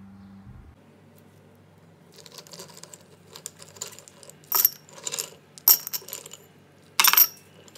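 Ice cubes clinking against glass as they are dropped into tall drinking glasses: soft clicks at first, then a handful of sharp, loud clinks in the second half.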